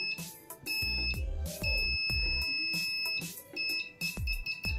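The continuity buzzer of a homemade multimeter sounds in a steady high-pitched beep each time the test probe tips touch. It goes as several beeps of uneven length, the longest about a second and a half. The beep signals a closed circuit between the probes.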